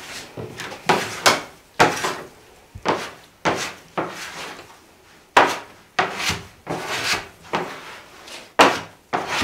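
Bread dough being kneaded by hand on a wooden tabletop: uneven thumps and rubbing pushes of the dough against the wood, about one or two a second.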